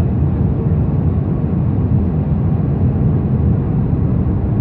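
Steady low rumble of a jet airliner's cabin in flight, heard from a window seat.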